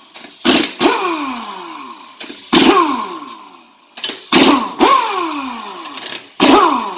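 A handheld power tool run in about six short bursts while the transmission is being taken apart. Each burst starts sharply and falls in pitch as the tool spins down after the trigger is released.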